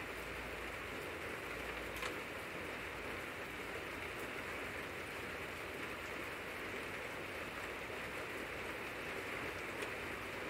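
Steady, even background hiss, with a faint click about two seconds in.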